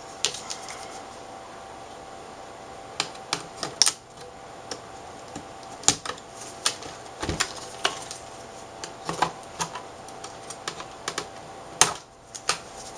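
Irregular light clicks and snaps of a small flathead screwdriver prying the plastic frame's clips loose from an LCD panel, with one duller knock about seven seconds in, over a faint steady hum.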